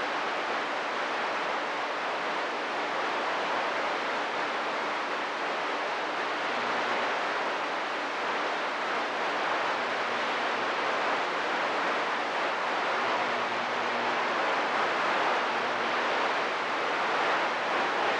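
Steady hiss of CB radio static between transmissions, with faint low steady tones under it.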